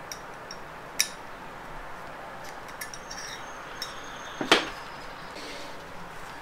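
Light metal clicks and taps of a pick tool working against a metal automatic-transmission clutch piston while its O-rings are pried out. There is a sharp click about a second in, a few fainter ticks, and the loudest clink about four and a half seconds in.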